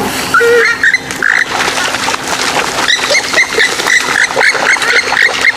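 Swamphen and moorhen calls: harsh, rough calling, then from about three seconds in a fast series of short, evenly spaced notes, about three a second.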